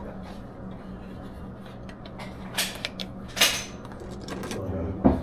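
Pistol magazines and ammunition being handled on a shooting-range bench: a few sharp metallic clacks between about two and a half and three and a half seconds in, over a steady low hum.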